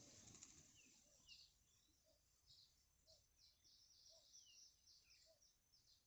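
Faint high-pitched bird chirps, a couple a second, with softer lower chirps about once a second. A low rustling noise fades out within the first second.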